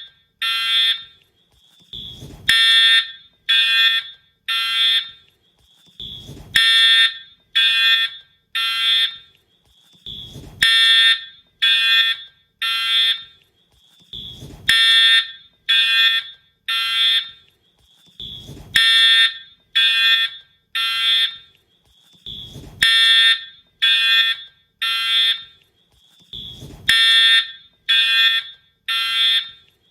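Wheelock fire alarm horn sounding the temporal-three evacuation pattern: three short, loud blasts about a second apart, then a pause, repeating about every four seconds. A short low thump comes at the start of each cycle.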